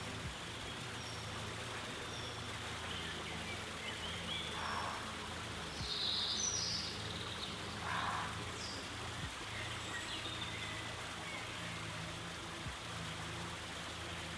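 Steady hiss of water, with a few short high bird chirps scattered through; the clearest comes about six seconds in.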